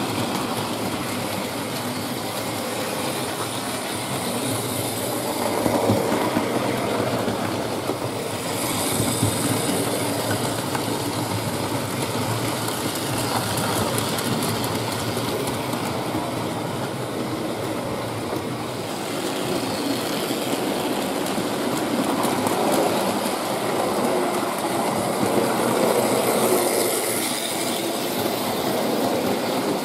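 Hornby Dublo three-rail model trains running on loose-laid tinplate track: a continuous rattling clatter of wheels on the rails, swelling louder several times as trains pass close by.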